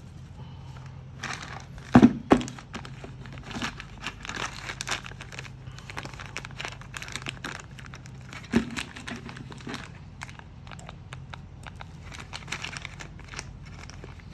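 Plastic packaging crinkling and rustling as it is unwrapped, with many irregular crackles and two sharp knocks, the loudest about two seconds in and another past the middle. A steady low hum runs underneath.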